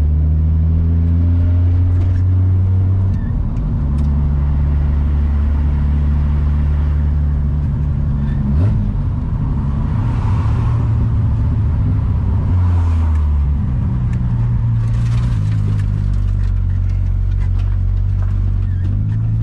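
Nissan S14 Silvia's RB30 straight-six engine heard from inside the car, running at steady revs that shift in steps a few times, with a brief sharp sound about eight and a half seconds in.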